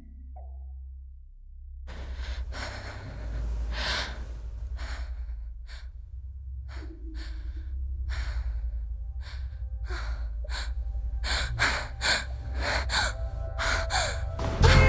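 A girl's frightened breathing and gasps, starting about two seconds in and coming faster and faster toward the end, over a steady low rumble.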